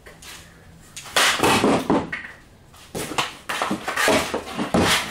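Knocking and clattering of hard objects: a loud burst about a second in, then a run of separate knocks through the last two seconds.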